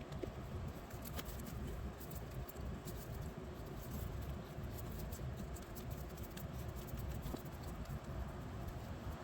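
Rubber windshield seal being worked onto the edge of the glass by hand: scattered faint rubbing and light clicks over a low steady rumble.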